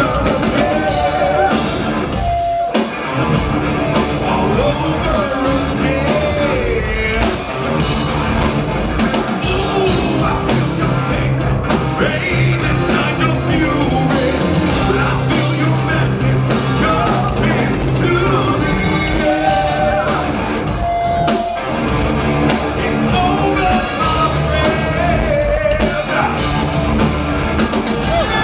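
A live progressive metal band playing loudly: a male lead singer over drums, bass guitar and keyboards.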